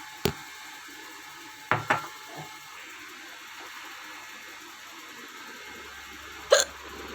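A woman hiccuping several times: short sharp catches about a quarter second in, two close together near two seconds, and a louder one near the end. A low steady hum comes on shortly before the end.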